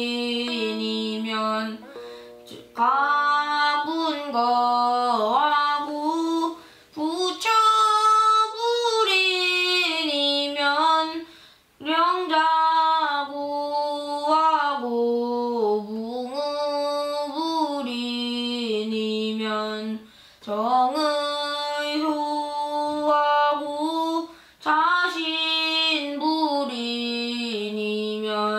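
A voice chanting classical Chinese text in the traditional seongdok reading melody, with long held notes that slide up and down between pitches. The chant comes in phrases with brief breaks between them.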